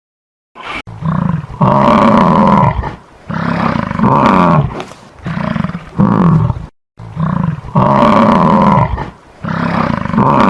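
A large animal calling loudly over and over, each call drawn out for about a second with short gaps between.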